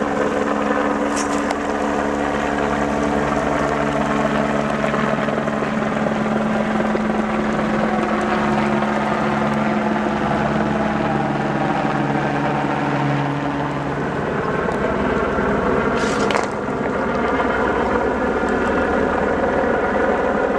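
Light single-rotor helicopter flying low overhead, its rotor and engine running steadily. A lower steady hum drops out about two-thirds of the way through, and there is a short sharp click near the end.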